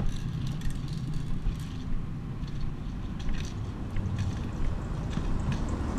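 Players moving on foot with their gear: scattered light taps and clicks of footsteps and equipment over a steady low rumble.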